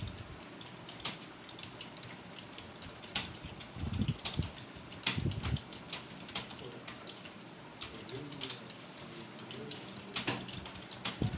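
Computer keyboard keys being typed on, with irregular soft clicks and an occasional louder key strike, over a low background hiss.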